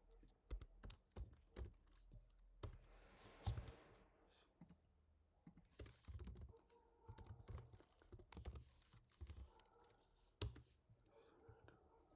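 Faint typing on a computer keyboard: irregular keystrokes in quick runs with short pauses between them.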